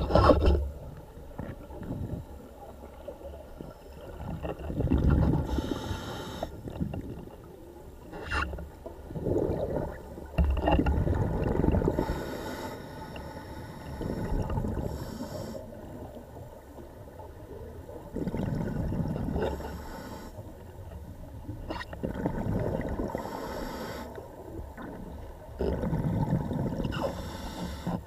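Scuba diver breathing through a regulator underwater: bubbling, rumbling exhalations every few seconds, with short hissing inhalations between them.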